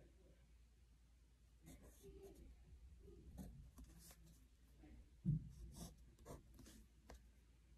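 Faint scratching of a coloured pencil on paper in short strokes, with a single low knock about five seconds in.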